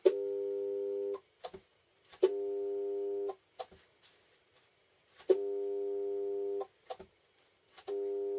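Homemade spot welder's transformer humming for about a second at a time, four times over, each run switched on and off with a sharp click by its timer circuit as the handle is pressed down. Lighter clicks of the handle and mechanism fall between the runs.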